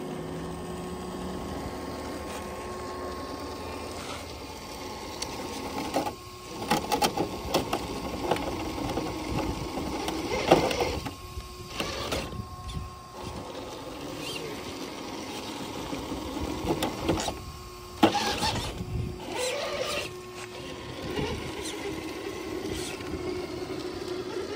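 Steady whine of a 6x6 RC rock crawler's electric motor and geared drivetrain as it climbs over rock. Two stretches of tyres scrabbling and the chassis clattering on the stone, with sharp knocks about ten and eighteen seconds in.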